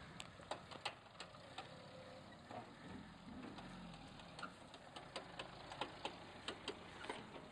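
Suzuki Vitara crawling slowly over a rough track of dirt, stones and dry leaves. Irregular sharp clicks and crackles come from the ground under its tyres, a few a second, over a faint low engine hum.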